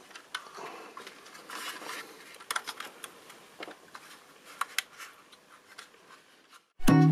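Hands handling a 1:24 scale model car: soft rubbing and rustling, with scattered small sharp clicks as its doors are swung open. Near the end, plucked guitar music starts, louder than the handling.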